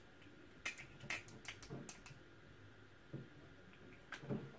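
Light, irregular clicks and taps, about seven of them, as a small bottle of rose hair and body oil is opened, handled and its oil applied.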